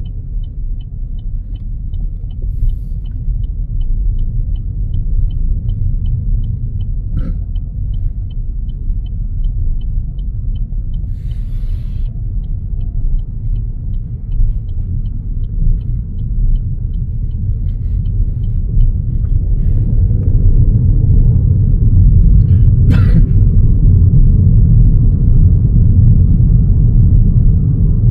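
Road and engine rumble inside a moving car's cabin, growing louder partway through. A faint, quick, high ticking, about four a second, runs through the first part and then stops, and there is one short knock late on.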